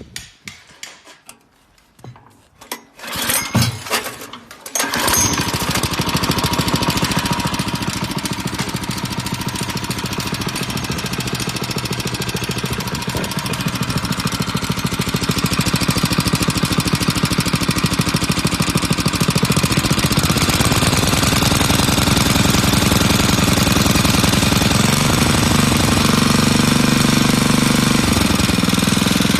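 Mitsubishi G352P engine on a Koshin SEM-50X engine pump being started: a few short bursts of sound about three to four seconds in, then it catches about five seconds in and runs steadily, its note growing deeper and heavier after about twenty seconds.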